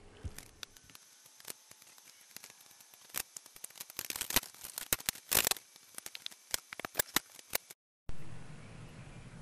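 Masking tape being peeled off the edge of a wooden ceiling beam after painting, a run of irregular crackles and short rips that is busiest in the middle and stops suddenly near the end.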